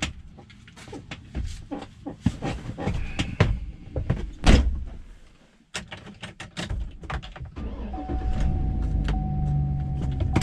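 Knocks, clicks and rustling as a person climbs into a pickup truck's cab and settles into the driver's seat, with one loud thump about four and a half seconds in. From about eight seconds a steady low hum with a thin steady tone takes over, the truck running.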